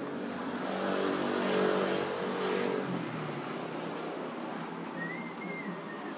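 A motor vehicle's engine passes close by with a steady hum that falls in pitch as it moves away, about three seconds in, over the noise of a busy street.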